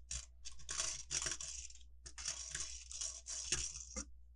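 A plastic bag of Lego pieces being torn open and crinkled, in two long stretches of rustling with small clicks of loose pieces.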